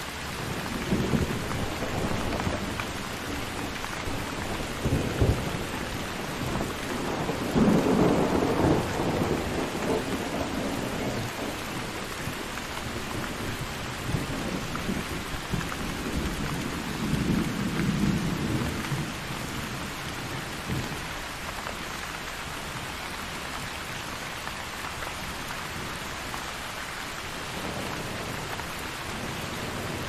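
Steady rain with thunder rumbling over it; the loudest roll of thunder comes about eight seconds in, a second swells up around seventeen seconds, and the last third is rain alone.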